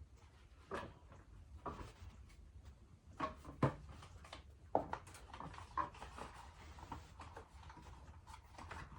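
Scattered light clicks and knocks of a part being fitted onto an e-bike and its bolts started by hand, with faint handling noise between them.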